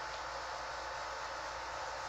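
Steady hiss of a fan running in a small room, with faint steady tones in it and no other sound standing out.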